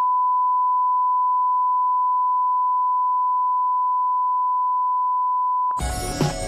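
Steady single-pitch test tone, the reference tone that goes with colour bars. It cuts off abruptly about five and a half seconds in, and music starts at once.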